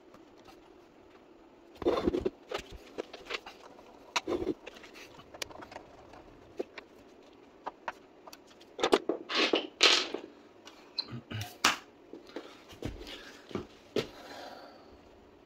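Hand tools and loose metal parts being handled on an electric scooter's frame: irregular clicks, knocks and scrapes, loudest about two seconds in and again around nine to ten seconds in.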